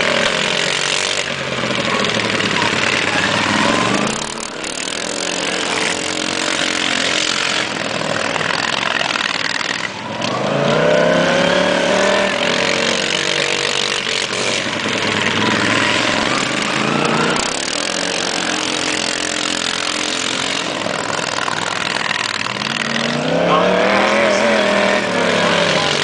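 Racing lawn mower engines running hard, their pitch rising and falling repeatedly as the mowers accelerate and pass.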